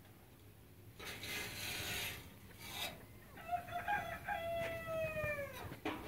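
A rooster crows once: a long held note that falls in pitch at its end. A rustling, scraping noise comes before it.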